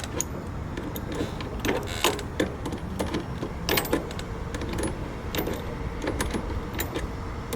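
Scattered sharp metallic clicks and clinks, as of hardware being handled while fitting a dinghy outboard motor mount, over a steady low rumble.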